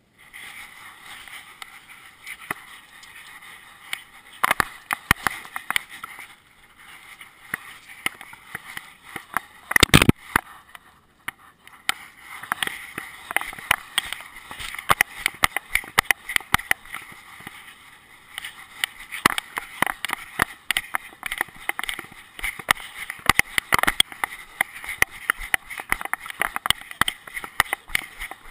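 Handling noise from an action camera strapped to a walking dog: the camera housing and harness rub and click irregularly with each movement, with one heavy knock about ten seconds in.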